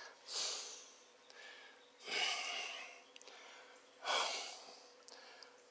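A person breathing heavily: three breaths about two seconds apart, each a short, hissy rush of air.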